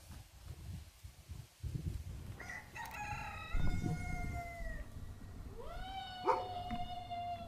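A rooster crowing twice, each crow a drawn-out call of about two seconds; the second rises and then holds its pitch. A low rumble runs underneath.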